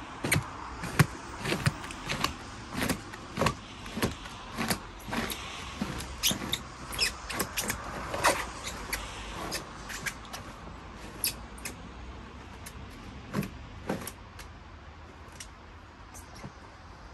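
A run of irregular knocks and clatters, some with a brief ring, coming thick and fast for about the first ten seconds and then thinning to a few scattered knocks.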